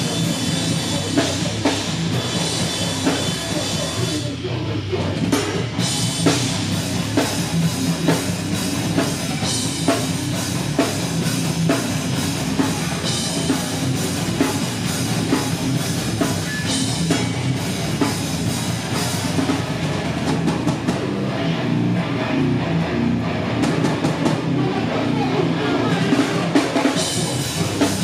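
Heavy rock band playing live: pounding drum kit and distorted electric guitar, steady and loud throughout.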